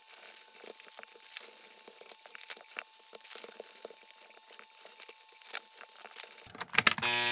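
Clear plastic vacuum-sealer bag crinkling and rustling as gloved hands drop chunks of raw venison into it, with many small soft clicks. Near the end come a few sharp clicks, then a vacuum sealer's motor starts with a steady hum.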